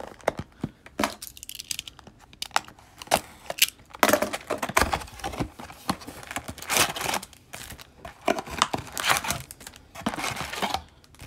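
Hands tearing open a cardboard hockey-card hobby box and pulling out its foil packs. The wrapping tears and crumples, and the packs crinkle in repeated bursts that get busier and louder partway through.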